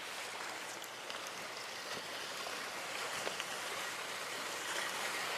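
Sea water washing steadily against a breakwater's concrete tetrapods, an even hiss with a few faint ticks.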